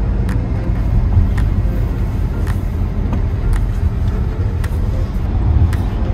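Car cabin noise while driving: a steady low rumble of engine and road, with a faint tick about once a second.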